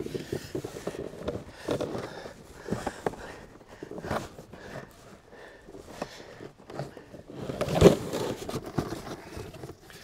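Cardboard carton holding a roll of baling wire scraping, rustling and bumping against the steel wire box of a New Holland square baler as it is forced in; it is a tight fit. Scattered scrapes and knocks, the loudest about eight seconds in.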